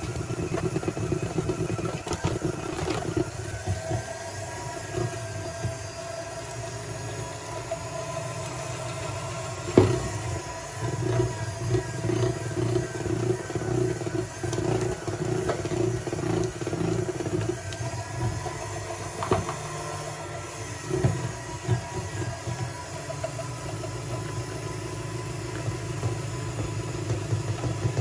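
Handheld electric mixer running steadily, its beaters churning through thick cake batter in a bowl and knocking against the bowl now and then, with one sharp knock about ten seconds in.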